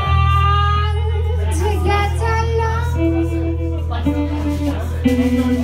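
Live band: a woman singing sustained notes into a microphone over electric guitar and drums, with a steady low drone underneath.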